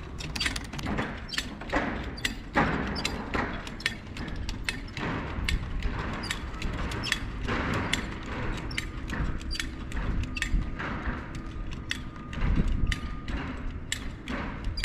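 Irregular sharp metallic clicks and knocks, a few per second, from the buckles, straps and fittings of a curtain-side trailer's side curtain being worked by hand.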